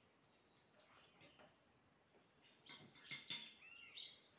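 Faint birdsong: short high chirps, several sliding down in pitch, scattered through, busiest about three seconds in with a looping whistled call. A few light clicks fall among them.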